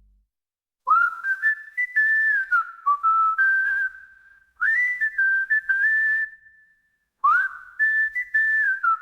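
A slow tune whistled in clear, held notes, in three phrases that each begin with an upward slide.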